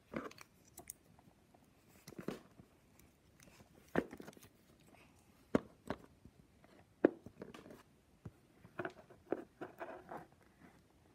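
Small hard-plastic clicks and taps from a Playmobil figure and its hat being handled, pressed together and set down, with short rustles in between. The clicks come irregularly, every second or two.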